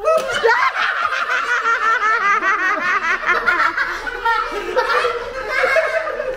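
Several people laughing hard, breaking out suddenly and running on, with a child's high laughter among them.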